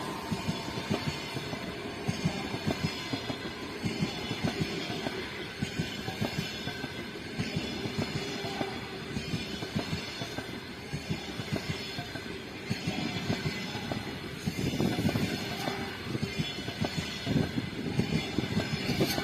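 Passenger train hauled by an EP2K electric locomotive passing at speed, its coach wheels clattering steadily over the rails with a dense run of knocks.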